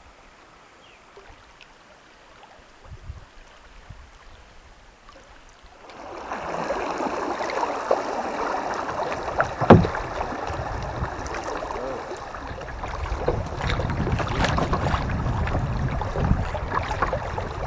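Kayak paddling on a river: after about six faint seconds, paddle strokes splash and water rushes along the hull, with a sharp knock about ten seconds in.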